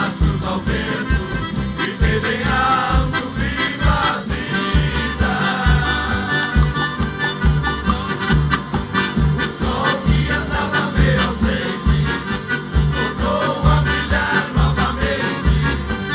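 Live Brazilian country (caipira) music played by a band, with an even bass beat under a sustained melody line.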